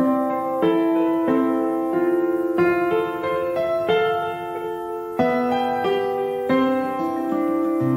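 Background music: a slow melody of single notes played on a piano.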